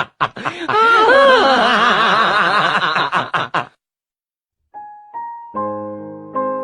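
A high, wavering voice with quick rises and falls in pitch, like laughing, cuts off at about three and a half seconds. After a second of silence, piano notes begin, playing a simple melody and chords.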